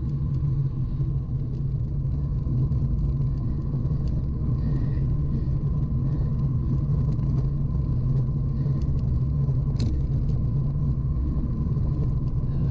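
Wind rushing over a bike-mounted action camera's microphone, mixed with tyre rumble on the road, as a road bike rolls along at around 30 km/h. The low rumble stays steady throughout, with a few faint ticks.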